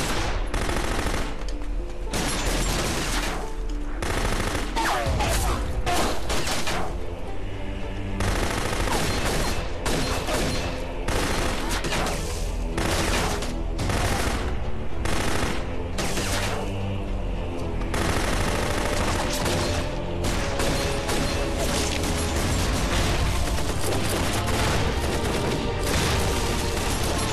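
Sustained exchange of gunfire, many rapid pistol and rifle shots overlapping without a break, over dramatic background music.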